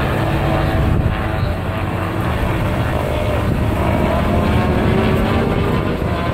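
Engines of two racing sidecar outfits running at speed as they go around the track, heard at a distance over a dense, steady noise, the engine note drifting up and down.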